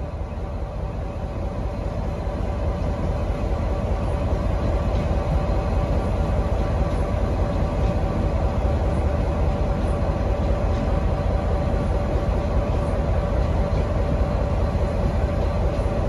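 N class diesel-electric locomotive's EMD V12 two-stroke engine running at the platform, a steady low rumble with a steady whine over it, growing louder over the first few seconds and then holding level.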